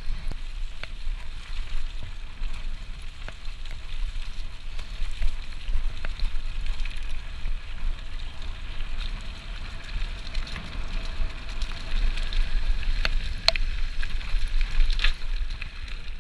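Mountain bike ridden fast down a rough dirt trail: a steady low rumble of wind on the microphone with tyre noise, and sharp rattles and knocks from the bike over bumps, the clearest two near the end.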